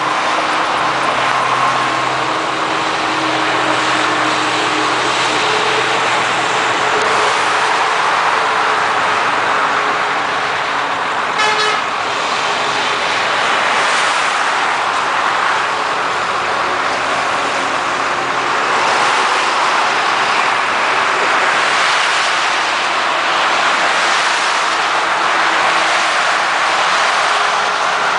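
Convoy of tow trucks and cars passing on a highway: a steady rush of engine and tyre noise, with horns sounding now and then, held tones most plainly in the first several seconds.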